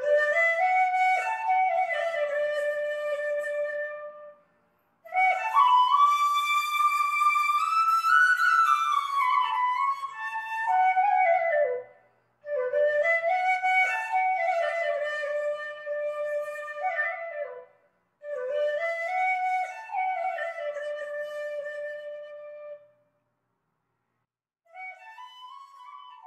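Solo instrumental music: a single melody line played in phrases of several seconds with short breaks between them, the last phrase quieter.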